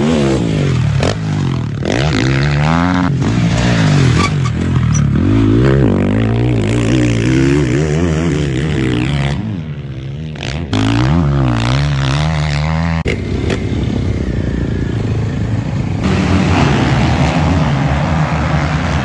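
Motocross bike engines revving up and down hard through the gears, in several short clips that cut abruptly one to the next. Near the end, a whole field of bikes accelerates together off the start.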